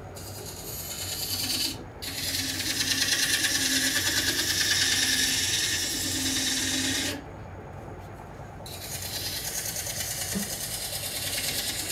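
A handheld usaba scraper with a rolled edge cuts a dry wood cup spinning on a Japanese-style lathe, making a hissing scrape in long passes. The loudest pass runs from about two to seven seconds in, with short breaks between passes, over a low steady hum.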